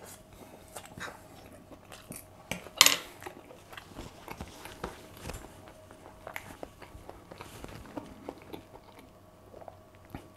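A man chewing a mouthful of roasted new potato and lamb loin, with many small mouth clicks and one louder short sound about three seconds in. A faint steady hum runs underneath.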